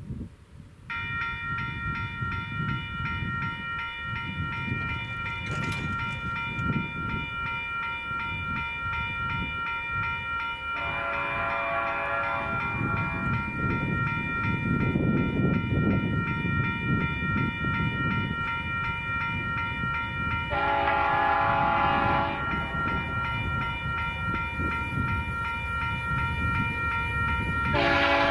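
Union Pacific freight train approaching, its locomotive air horn sounding a long blast about eleven seconds in, a shorter one about twenty seconds in, and another starting near the end. Under the horn runs a growing rumble of the train and a steady high ringing tone.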